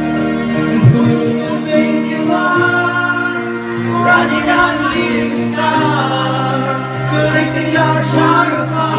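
Background music: a song with sung vocals over sustained instrumental chords.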